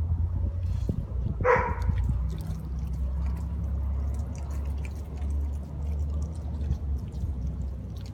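A mixed-breed dog barks once about a second and a half in, then makes small wet licking and smacking clicks as it mouths a whole raw fish. A steady low hum runs underneath.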